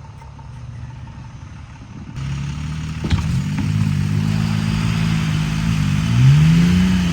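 A vehicle engine running. It gets louder about two seconds in, with a sharp knock about a second later, then revs up and back down near the end.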